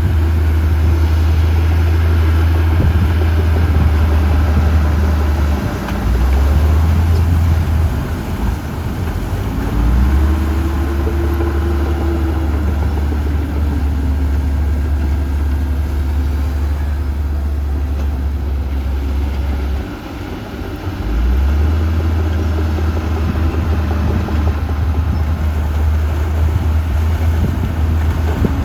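Heavy diesel earthmoving machinery running: a deep, steady engine drone that changes note briefly about six and twenty seconds in, with the pitch rising and falling around ten seconds in.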